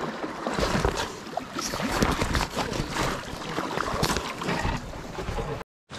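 Dry reed stems scraping and crackling along the sides of a kayak as it is pushed through a reed bed: a dense, continuous rustle of many small clicks that breaks off for a moment near the end.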